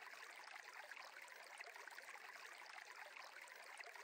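Faint, steady sound of a flowing stream.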